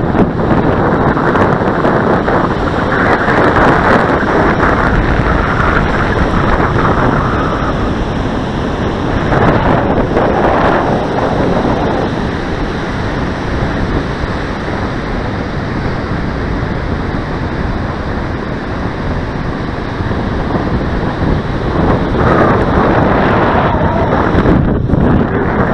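Strong wind buffeting the microphone in gusts, over the steady wash of surf.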